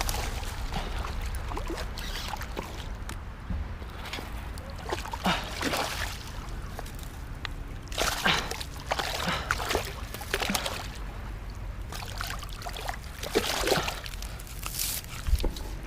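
Water splashing and sloshing in irregular bursts, the sound of a hooked peacock bass thrashing as it is landed and handled, over a steady low rumble.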